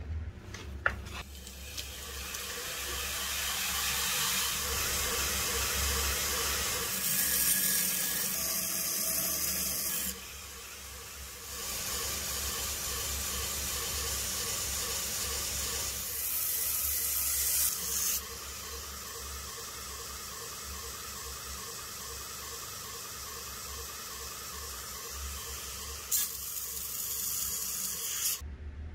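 Belt grinder running with a steel kitchen knife blade held against the abrasive belt: a steady grinding hiss over the motor's hum. It changes in strength at several points and drops away briefly about ten seconds in.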